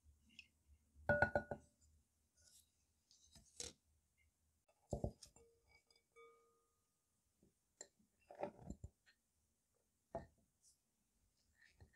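Clinks and knocks of a glass mixing bowl being handled, the loudest about a second in with a short ringing tone, then a few lighter scattered taps and knocks.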